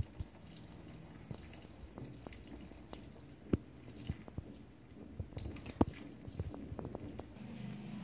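LG T1084WFES5A top-loading washing machine taking in water, a faint trickle and splash into the tub, with scattered drips and small clicks over a low hum.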